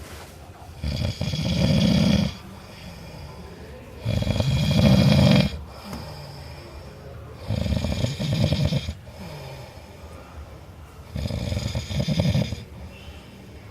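A man snoring in his sleep: four loud snores, each lasting a second or more, about three and a half seconds apart, with quieter breathing between them.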